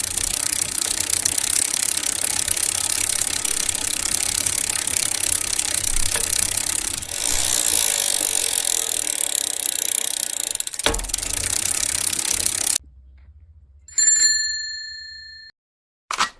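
A dense mechanical clattering and rattling for about thirteen seconds that cuts off suddenly, followed by a single bell ding that rings out and fades over about a second and a half, then a short burst of noise at the very end.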